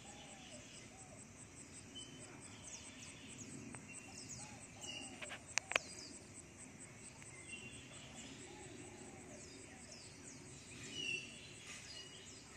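Faint outdoor ambience of small birds chirping and calling over and over, with two sharp clicks close together a little before halfway.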